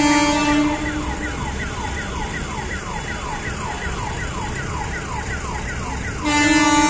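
An electronic siren gives short falling wails, about three a second. Over it a steady blaring horn sounds at the start, cuts off within the first second and starts again near the end.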